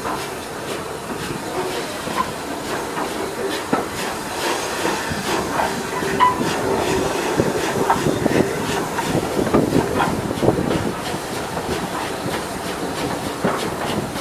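Train hauled by a rebuilt Bulleid Battle of Britain class Pacific steam locomotive pulling slowly away, heard from the leading coach: steam hissing and the wheels clicking and knocking irregularly over rail joints and points, with a few brief squeals in the middle.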